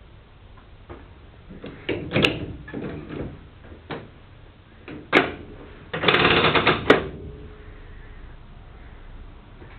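Control levers on the driver's desk of a 0-series Shinkansen cab worked by hand: several sharp clicks and clunks, then about a second of rapid clattering.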